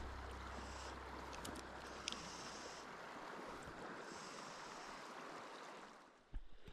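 Steady rush of river current, faint, with a low wind rumble on the microphone in the first second or so and a couple of light clicks. About six seconds in the water sound drops away, followed by a few soft thumps.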